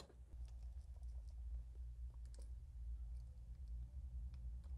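Faint, scattered small clicks and taps of the power switch's parts being handled: a small metal contact piece set into its plastic switch housing and pushed at with metal tweezers, over a low steady hum.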